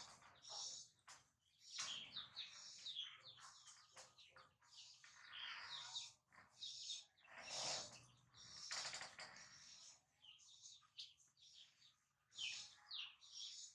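Faint high-pitched chirping calls: many short, mostly falling chirps, a little louder in a cluster about halfway through.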